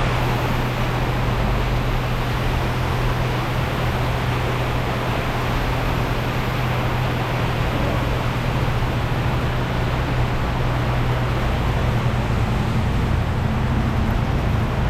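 A motorbike engine running steadily under a constant hiss of wind and rain.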